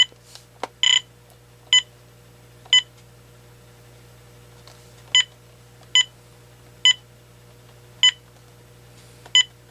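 AT&T 7720 cordless phone giving short key-press beeps as its buttons are worked: about nine identical beeps at uneven spacing, one slightly longer about a second in, with a pause near the middle.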